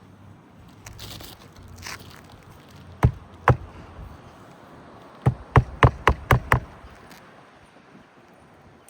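Hammer driving roofing nails by hand into a replacement asphalt architectural shingle: two sharp strikes, a pause, then a quick run of six strikes. The shingles are stiff and brittle, and the nailing creases the ones above.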